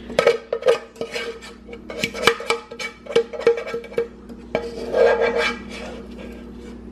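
A spoon scraping and knocking against the inside of a saucepan while marinara sauce is scooped out, a run of sharp clicks and scrapes, some with a short ring from the pan, and a longer scrape about five seconds in.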